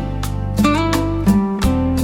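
Slow instrumental jazz: a plucked acoustic guitar playing notes over sustained low bass notes.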